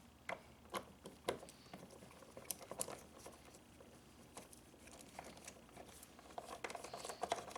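Light, irregular clicks and taps of hand tools on the star-head screws and trunk fittings, with a denser run of clicks near the end.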